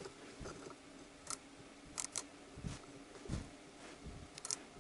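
Outside micrometer's ratchet stop clicking faintly a few times as its spindle is closed onto a used piston's skirt; clicking means the spindle has closed on the piston at the ratchet's set measuring pressure. A few soft handling knocks come in between.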